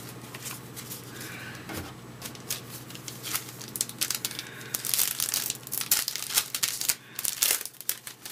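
A baseball card pack's wrapper being torn open and crinkled, a string of sharp crackles with the loudest bursts about five and seven and a half seconds in.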